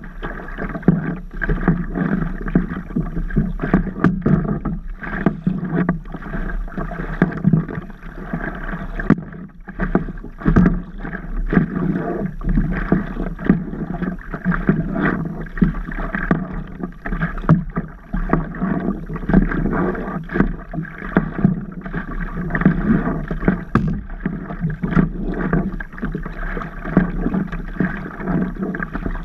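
Water sloshing and slapping against a stand-up paddleboard close to the microphone, with paddle strokes through the water and frequent small irregular knocks and splashes.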